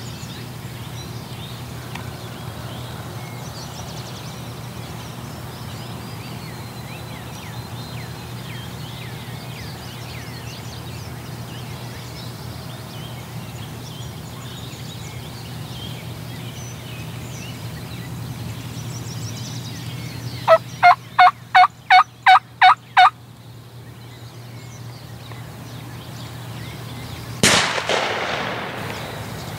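A run of eight loud, evenly spaced turkey yelps, a little over three a second, about two-thirds of the way through, then a single shotgun blast near the end that rings out briefly: the shot taken at a strutting wild turkey gobbler. Faint songbird chirps and a steady low hum sit underneath.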